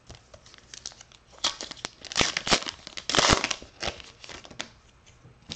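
Baseball card pack wrapper being torn open and crinkled: an irregular run of crackling rips and sharp clicks, loudest about three seconds in.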